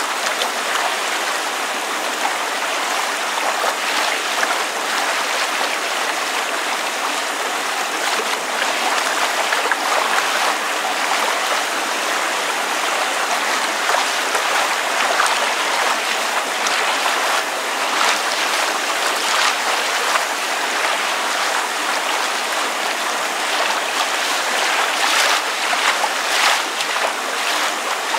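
Water lapping and splashing against a surface as rain falls: a steady hiss with many small, irregular splashes.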